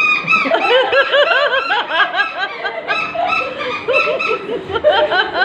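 Several people laughing, in quick repeated ha-ha pulses that overlap at different pitches.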